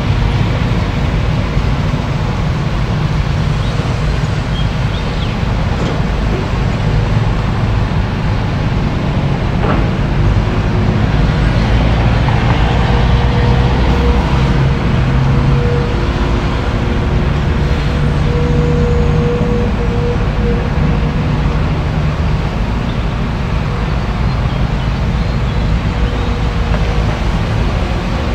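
Caterpillar hydraulic excavator's diesel engine running steadily under load as it digs, with a hydraulic whine that comes in about twelve seconds in and holds for several seconds.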